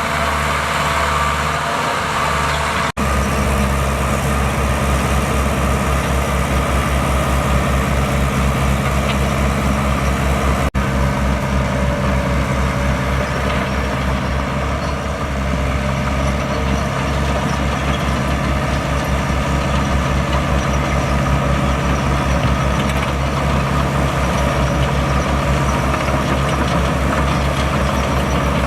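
Diesel engine of earthmoving machinery running steadily with a fast low pulsing beat. The sound breaks off very briefly twice, once a few seconds in and again about eight seconds later.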